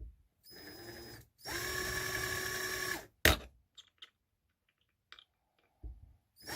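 Hand-held power drill running in short trigger bursts, drilling into the hardened steel of a folding-saw blade: a brief weaker run, then a longer steady whine, a sharp knock just after it, and another burst at the end.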